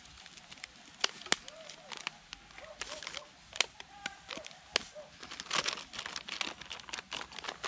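Thin plastic bag of sugar being handled and worked open by hand: irregular crinkling with sharp crackles.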